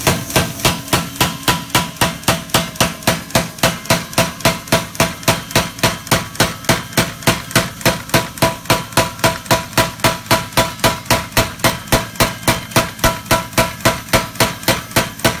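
BLU 110 pneumatic power hammer striking red-hot 1084 steel between its dies in a steady run of blows, about three a second, drawing out a knife blade.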